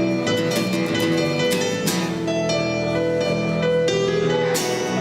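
Instrumental music of plucked strings, with a run of quick plucked notes over sustained chords.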